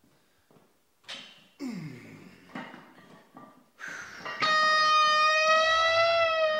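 Electric guitar in a music soundtrack: a few scattered plucked notes and a downward slide, then about four seconds in a long, loud held note that bends slightly in pitch.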